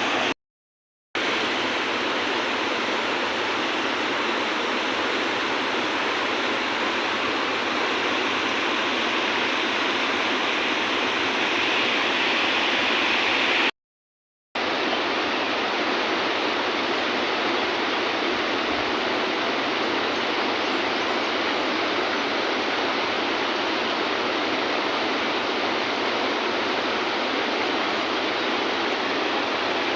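Steady rush of flowing river water, broken twice by brief drops to silence, about half a second in and again about fourteen seconds in.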